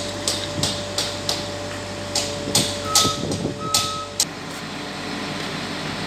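A steady diesel engine hum, most likely the mobile crane's, under a run of sharp clicks and knocks at about three a second. Two short high beeps sound in the middle. The clicks stop and the hum changes pitch about four seconds in.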